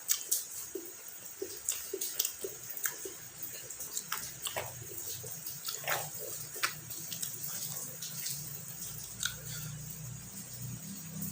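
Close-up eating sounds of a person chewing fried fish and rice: irregular wet mouth clicks and smacks.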